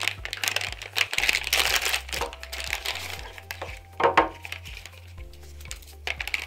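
Foil-lined plastic pouch crinkling as it is torn open and the test device and swab are pulled out, with a sharper crackle of the wrapper about four seconds in. Soft background music with low sustained notes plays underneath.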